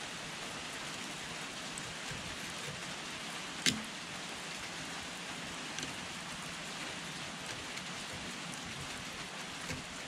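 Small flathead screwdriver picking dirt and rust from the corroded metal of a Burnside carbine, with one sharp click of the blade on the metal about three and a half seconds in and a couple of faint ticks later, over a steady hiss.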